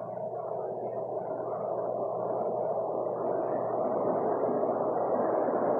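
Washington Metro Red Line train of new silver 7000-series cars running at the station platform, a steady noise of wheels and motors that grows slowly louder.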